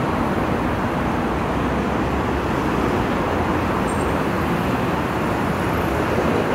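Steady road traffic noise from cars on the street beside the sidewalk, an even rumble with no distinct events.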